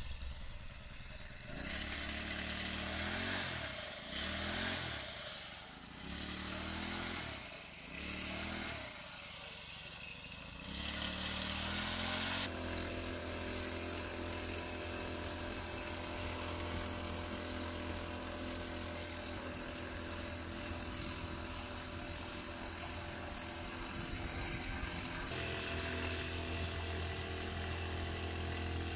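Small brush-cutter engine mounted on a bicycle, revved up and down about four times. It then runs steadily as the bike is ridden, growing a little louder about three seconds before the end.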